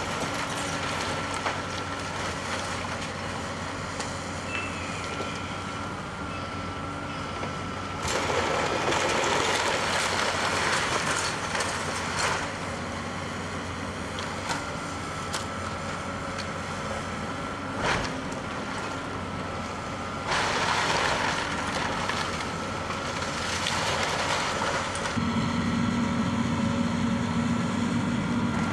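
Tracked excavator running steadily with a constant whine while it tears down a wood-frame house. Two louder spells of crashing, splintering wood and falling debris come about eight and twenty seconds in, with a single sharp knock between them.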